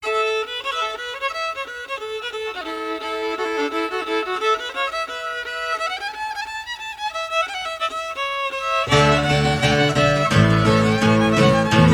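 Instrumental intro of a folk-rock song: a fiddle plays a melody alone, sliding between notes. About nine seconds in, the band comes in with low bass notes and the music gets louder.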